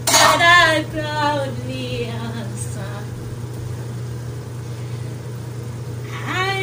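A voice singing: a long phrase that slowly falls in pitch at the start and a new held note near the end, over a steady low hum.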